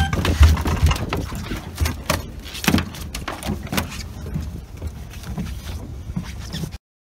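Japanese sea bass flopping on a boat's deck: irregular thumps and slaps that grow sparser and quieter, over a low rumble. The sound cuts off just before the end.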